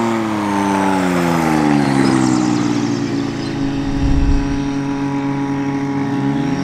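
Highlander STOL plane's Hypersports Yamaha engine and propeller running as it lands, the pitch falling over the first three seconds, then a steady drone, rising again near the end. A brief low rumble about four seconds in, as the wheels hit the grass.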